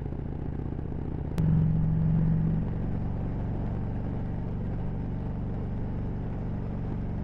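Harley-Davidson Road Glide's V-twin engine running steadily on the move, heard from the rider's seat. About a second and a half in there is a sharp click and the engine note gets louder for about a second, then settles back.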